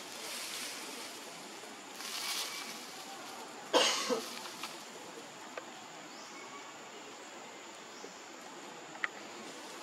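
Outdoor background hiss with a faint steady high whine. A short cough-like sound comes about four seconds in, and a few small clicks follow later.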